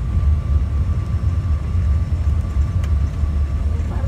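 Cabin noise of a strut-braced high-wing light aircraft rolling along the runway after landing: a steady deep engine and propeller drone, with a thin steady whine above it.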